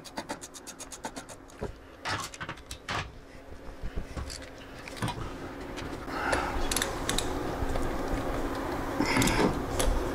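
Ratchet wrench clicking in a quick even run, about eight clicks a second, for the first second and a half. Then scattered metallic clinks and tool-handling knocks, growing busier near the end.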